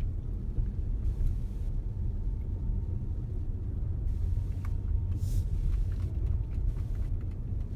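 Tesla Model S P85D driving up a steep snow-covered hill, heard inside the cabin: a steady low rumble of tyres on snow and road, with a faint steady whine and a brief hiss about five seconds in.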